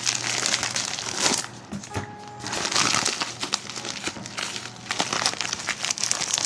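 Paper and plastic packaging crinkling and rustling as it is handled and unwrapped, a crackly run of many small clicks that comes and goes in loudness.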